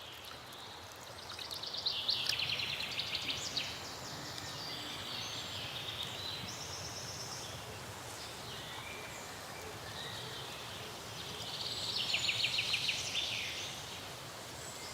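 Outdoor ambience with a small bird singing: two loud, rapid trilled phrases, one near the start and one near the end, with shorter high calls between them over a soft steady hiss.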